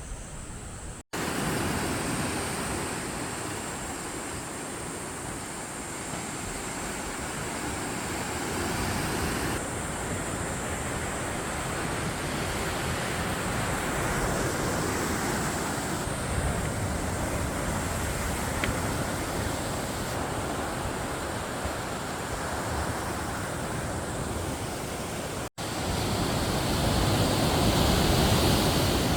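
Sea surf washing against a rocky shore, a steady rushing with wind on the microphone. It drops out briefly twice, about a second in and again near the end.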